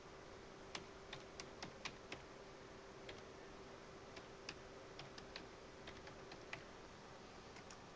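Faint typing on a computer keyboard: irregular keystrokes, busiest in the first couple of seconds and thinning out after, over a faint steady hum.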